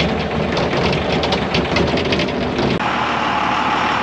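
A motor vehicle's engine running with a rough, rattly sound, changing abruptly about three seconds in to a steadier idle.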